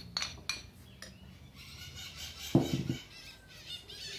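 A few light taps of a wooden spoon on a wire-mesh sieve, then birds chirping and one short loud squawk about two and a half seconds in.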